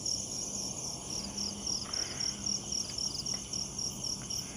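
Crickets chirping steadily at night, in an even rhythm of about three to four high chirps a second over a constant high insect buzz. A few faint ticks come through underneath.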